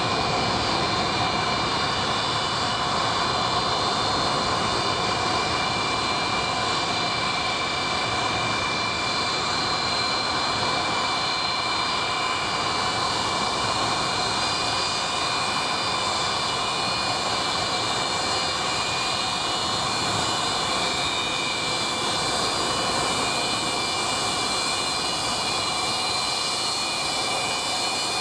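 Antonov An-124 Ruslan's four D-18T turbofan engines running at taxi power: a steady, loud rush of jet noise with several high, unwavering whining tones on top.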